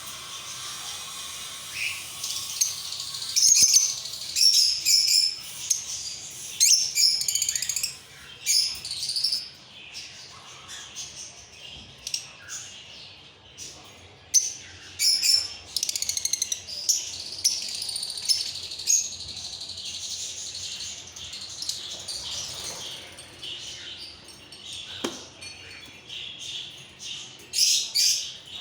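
Lovebirds chirping: many short, sharp, high-pitched calls in irregular bursts, with louder clusters of rapid chirping a few times.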